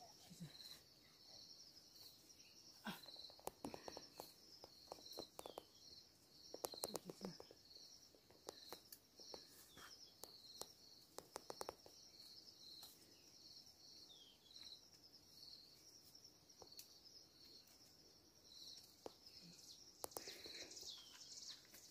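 Faint, steady high-pitched pulsing chirr of insects, with scattered clicks and rustles as tomatoes are picked from the plants.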